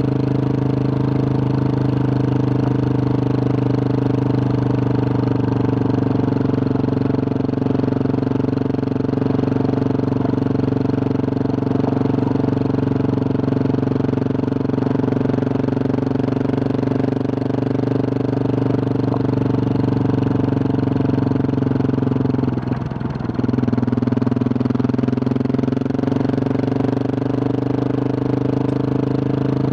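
Husqvarna 701 Supermoto's single-cylinder engine, breathing through a Wings aftermarket exhaust with a large dB killer, running steadily while riding a dirt road, with one brief break in the engine note near the end.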